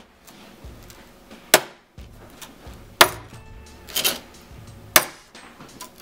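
The steel glass-breaker tip of a tactical pen striking panes of glass lying on a wooden table: about four sharp knocks, roughly a second apart.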